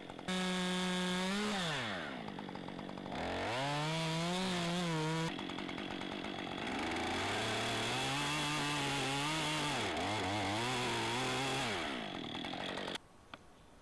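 Two-stroke chainsaw run up to full throttle in several long bursts, its pitch dropping back between them, as it makes the felling cut through a tree trunk. The saw's sound cuts off suddenly about a second before the end.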